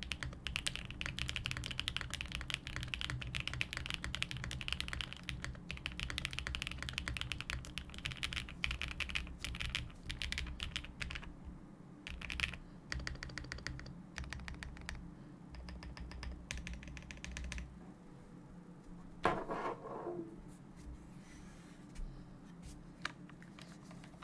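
Custom Mode Sonnet mechanical keyboard with lubed and filmed Flower Shadow switches, Durock V2 stabilisers and GMK keycaps being typed on. Fast, continuous typing runs for about the first eleven seconds, then come short runs of rapid keystrokes, then a few single keystrokes with one louder knock about three-quarters of the way through.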